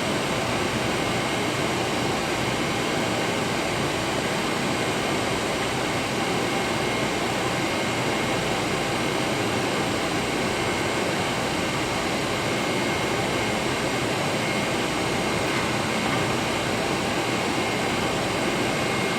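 Mechanical-room machinery running: a steady, even rush of HVAC equipment with a faint high whine held throughout.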